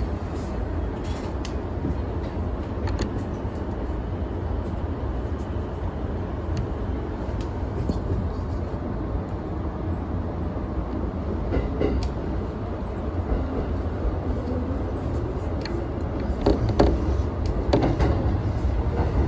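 Keihin-Tohoku Line E233 series electric commuter train running, heard from behind the driver's cab: a steady low rumble with scattered wheel clicks over rail joints. The clicks get louder and more frequent near the end as it runs over points.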